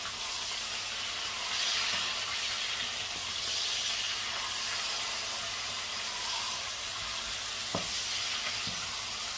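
Pork frying in a cast-iron pot, a steady sizzling hiss that swells now and then as it is stirred with a wooden spoon. One sharp knock comes near the end.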